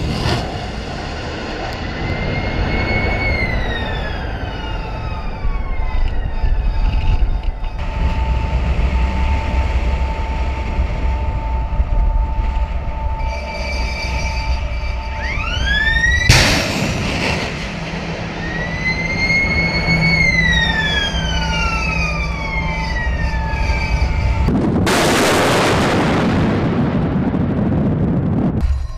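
Shipboard surface-to-air missile launches over a steady low rumble: a sudden blast about halfway through, and a rocket motor roaring for about four seconds near the end. Siren-like whistles rise and then fall away twice.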